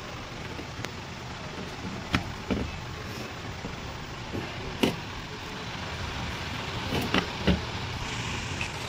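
A few short sharp clicks and knocks over a steady background hiss: computer parts being handled and set in place during a desktop PC build.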